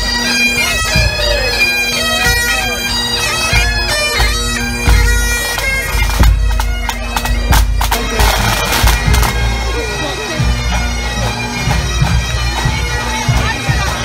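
Highland pipe band marching past: massed bagpipes with a steady drone under a stepping chanter melody, with drumming. The melody is clearest for the first several seconds, then blurs into a noisier mix of pipes and drum strokes while the drone holds.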